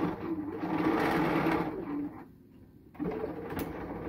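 Bernina B 535 computerized sewing machine stitching a row of understitching, running steadily. It stops about two seconds in and starts again a second later, with a sharp click shortly after it resumes.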